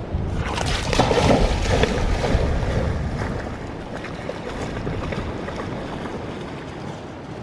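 Dog splashing into a shallow creek and through the water, loudest in the first few seconds and fading as it moves away.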